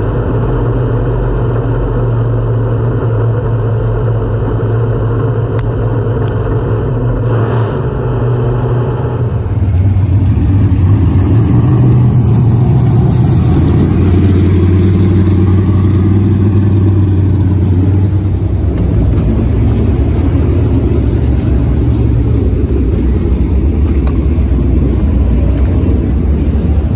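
Pure Stock dirt-track race car engine running on the track, heard from inside the cockpit. About nine seconds in this gives way to a louder, steady low race-car engine drone in the pits.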